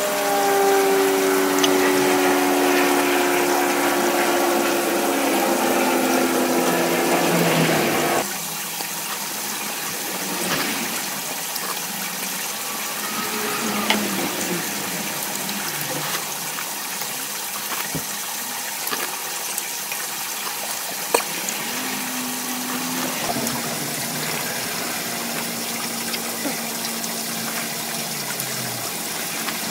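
Water running, with a hum that falls slowly in pitch, cut off abruptly about eight seconds in; after that a quieter hiss with a few faint clicks.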